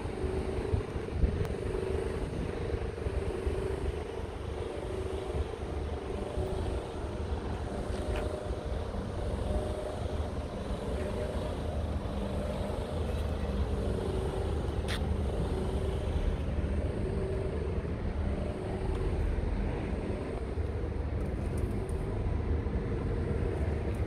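Steady low mechanical drone of an engine running, with a rumble that flickers in level like wind on the microphone.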